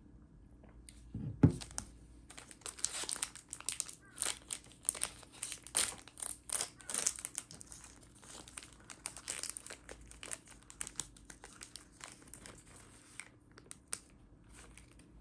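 A plastic snack wrapper crinkling and tearing as it is opened by hand, in many quick crackles lasting about ten seconds. Just before, about a second in, there is a single thump as a glass jar mug is set down on a table.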